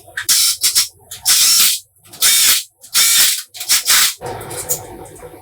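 Short bursts of hissing spray in quick succession, about six in the few seconds, each lasting well under a second.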